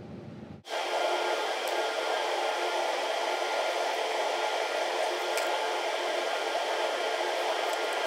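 Steady whirring rush of air from a running fan, cutting in abruptly about half a second in and holding level.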